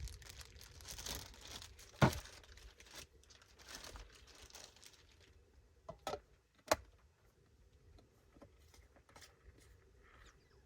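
Plastic bag crinkling and rustling for about five seconds, with a sharp knock about two seconds in and two more knocks a little past the middle.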